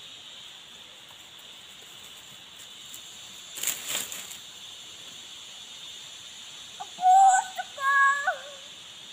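Steady high-pitched drone of tropical forest insects, with a brief rustling burst about four seconds in. Near the end come a few short, loud, high calls with wavering pitch.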